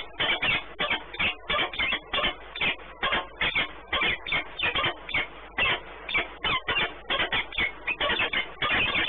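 Peregrine falcons at the nest scrape giving rapid, repeated short calls, about three to four a second without a break, as one bird takes over the eggs from its mate.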